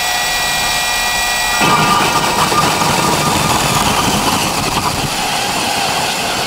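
DeWalt brushless cordless drill turning a carbide hole saw at low speed. The motor first gives a steady whine; about a second and a half in, the saw teeth bite into the wall and a rough cutting noise covers the whine as the hole is cut.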